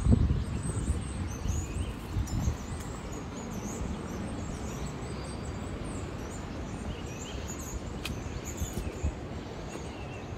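Small birds chirping repeatedly in short high calls over a steady low outdoor rumble, with a louder low burst at the start and one sharp click near the end.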